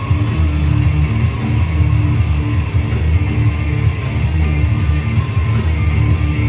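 Rock music with guitars playing steadily.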